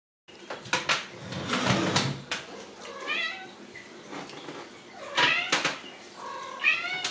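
Ragdoll kittens meowing twice, one high call about three seconds in and another near the end, among scuffling and sharp knocks as they climb over a pair of sneakers on a tile floor.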